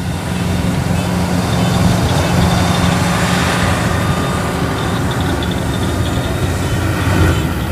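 Kubota combine harvester's diesel engine running steadily under load, a low drone, as the machine labours to climb out of deep, sticky paddy mud.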